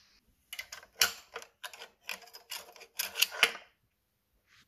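Screwdriver and Ford Model T transmission band being worked into place: a run of short, irregular scrapes and clicks that starts about half a second in and stops about a second before the end.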